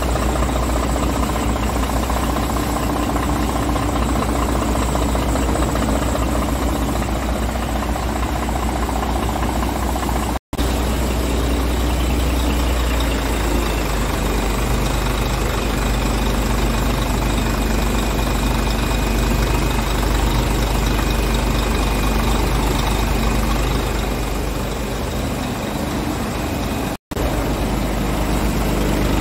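Scania R truck's diesel engine idling steadily, broken by two very brief gaps about ten seconds in and near the end.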